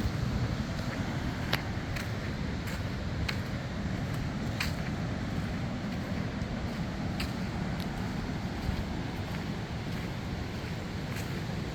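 Strong hurricane wind gusting over the microphone in a steady low buffeting, with a few sharp ticks every second or two.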